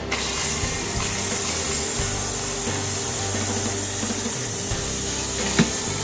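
Water poured steadily from a metal pot into a portable mini washing machine's tub, splashing onto the clothes inside, with a sharp knock about five and a half seconds in.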